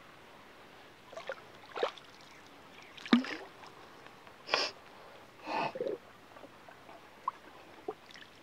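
A pole dipping into shallow water as a wooden boat is poled through a flooded field, giving short splashes and gurgles about once a second, the loudest about three seconds in.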